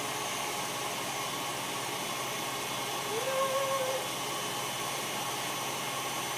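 KitchenAid electric mixer with a wire whisk running steadily at speed, whipping heavy cream, almond milk and pudding mix as it thickens into mousse.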